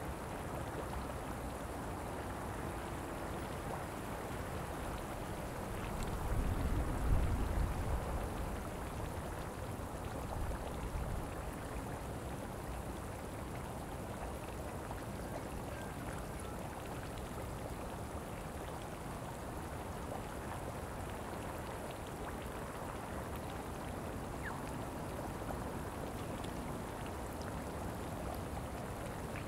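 Steady watery hiss with faint bubbling and popping from a geothermal pool. A low rumble swells about six seconds in and dies away by about eight.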